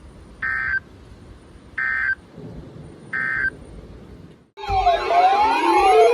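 NOAA Weather Radio end-of-message signal: three short, identical bursts of EAS SAME digital data tones, each about a third of a second, spaced about a second and a half apart. Near the end a loud blend of several siren tones sweeping up and down starts suddenly.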